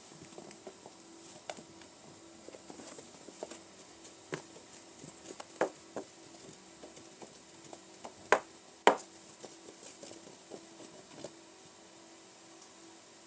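A kitten pouncing and batting at a yarn wand toy on carpet: scattered soft taps and scuffs, with two sharper knocks close together a little past the middle. A faint steady hum sits underneath.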